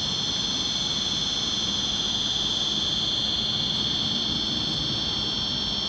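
The motors of a 1:12-scale RC excavator give a steady, high-pitched electric whine as the machine slews and moves its boom, with a faint low rumble underneath. The tone changes slightly about two-thirds of the way in.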